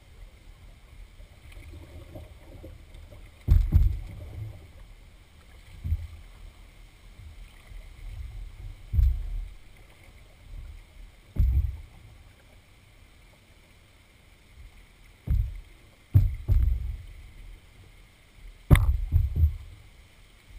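Canoe being paddled through floodwater: dull low thuds of paddle strokes and water against the hull every two to three seconds, picked up through the bow, with a sharper knock near the end.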